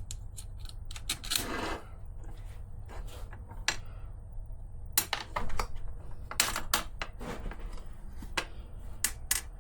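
Small screws and plastic and metal RC car parts being handled and fitted on a workbench: scattered light clicks and taps at irregular intervals, over a faint steady low hum.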